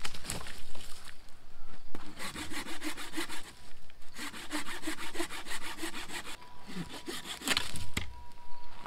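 Hand saw cutting a dead branch for firewood, in two runs of quick back-and-forth strokes with a short pause between. A few sharp cracks of the wood come near the end.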